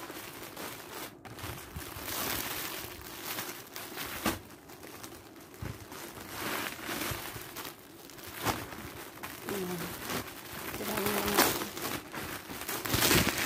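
Clear plastic packaging crinkling and rustling as it is handled, in uneven bursts, with two short low tones about two-thirds of the way through.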